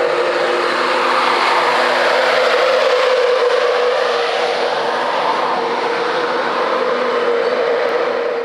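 Train running past close by: a loud, steady rush with a steady hum, easing off slightly near the end.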